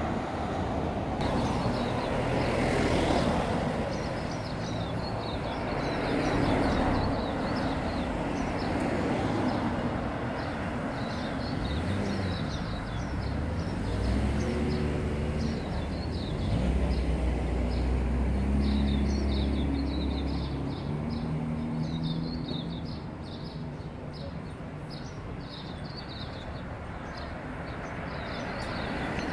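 Town street traffic: cars passing one after another in swells. A vehicle's low engine hum sits under it around the middle. Small birds chirp in quick repeated calls over the traffic through the second half.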